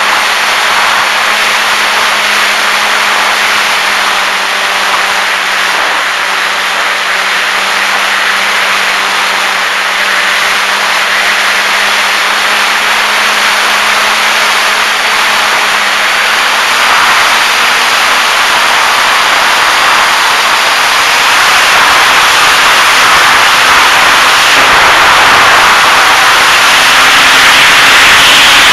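Tundra RC airplane's motor and propeller running steadily, heard from a camera mounted on the plane: a steady hum under a loud rush of wind noise. The rush grows louder over the last third as the plane noses down.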